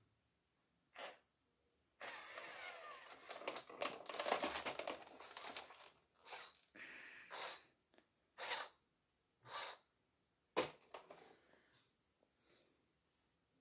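Robosapien toy robot's small geared motors whirring and clicking as they drive its arms and body through the factory motor test. A run of about four seconds of clattering gear noise, then short bursts about once a second, one ending in a sharp click.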